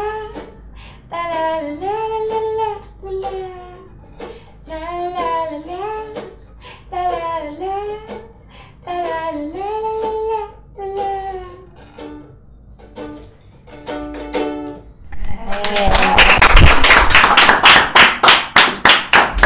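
A woman sings a wordless "la la la" melody over a strummed ukulele, the song ending about fifteen seconds in. Then loud clapping breaks out and runs on to the end.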